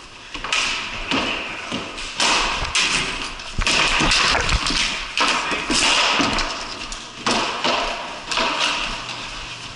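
Hockey sticks clacking and scraping on a concrete floor during play at the goal, with repeated sharp taps and thuds.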